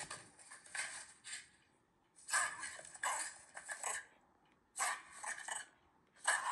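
Shiba Inu panting in short runs of quick, breathy pants with brief pauses between, the relaxed panting of a dog resting after a walk.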